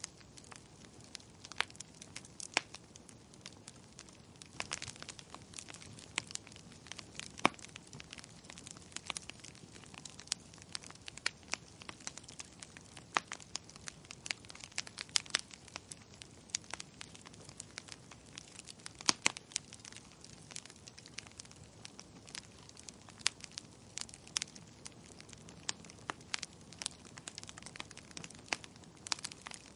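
Wood fire crackling in a fireplace: irregular sharp pops and snaps, several a second, over a faint steady hiss.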